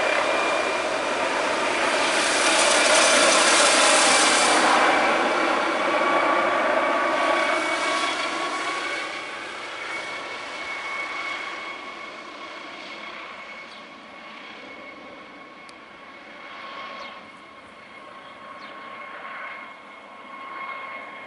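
MD 902 Explorer twin-turbine helicopter flying past and away: rotor and turbine noise loudest a few seconds in, its pitch dropping as it passes, then fading into the distance under a steady high turbine whine.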